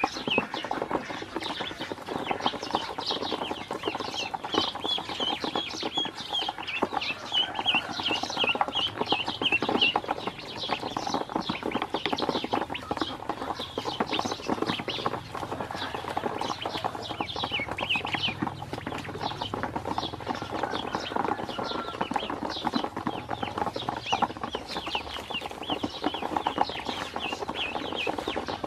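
A group of domestic ducklings peeping continuously in short, high, falling notes, over a rapid clatter of their bills pecking feed off the bottom of a plastic basin.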